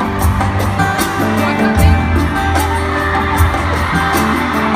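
Live band music played over a concert PA in an arena: a sustained bass line under regular percussion strikes, recorded on a phone.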